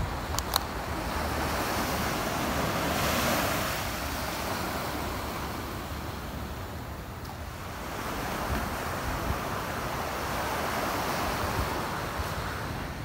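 Small waves breaking and washing up a sandy beach, the surf swelling twice, with wind rumbling on the microphone.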